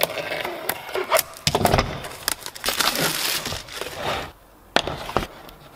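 Shrink-wrap film on a blue plastic torque-wrench case being slit with a utility knife and torn off, a run of crackles, crinkles and clicks. It dies away about three-quarters of the way in, with one more sharp click after.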